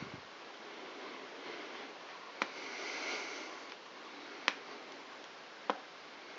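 Quiet handling noise while a vinyl stencil is peeled and picked off a freshly sprayed seat: faint rustling of film and plastic with three sharp clicks, about two seconds apart.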